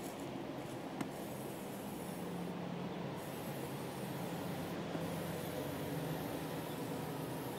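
Aerosol spray-paint can hissing in long bursts with two short breaks, over a steady low rumble. One sharp click about a second in.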